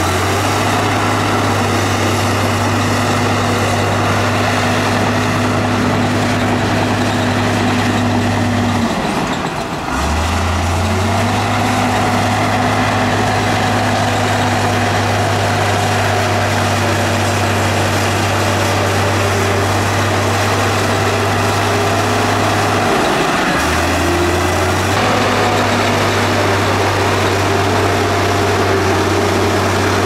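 Heavy diesel engine of earthmoving machinery running steadily at high speed, dropping briefly in pitch twice, about a third of the way in and again about three quarters through, before picking back up.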